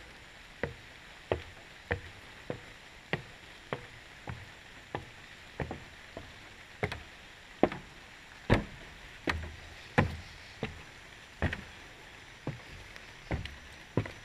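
Footsteps knocking on wooden boards, a steady walking pace of about one and a half steps a second, slowing slightly after the middle, with the heaviest steps between about eight and ten seconds in.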